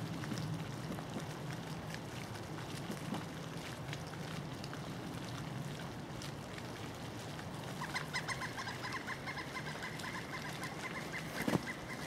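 Pileated woodpecker calling: a fast, even series of loud ringing notes, about ten a second, that begins about two-thirds of the way in and keeps going. There is a low steady rumble underneath, and a couple of sharp knocks near the end.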